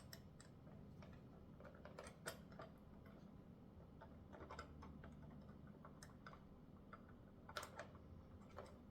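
Near silence with faint, scattered small clicks and ticks of small screws and metal parts being handled as screws are started into a bike repair stand's tool tray, over a low steady hum.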